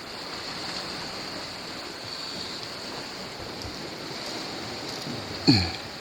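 Steady wash of sea surf on a rocky shore, with some wind on the microphone. Near the end, a brief, loud sound drops quickly in pitch.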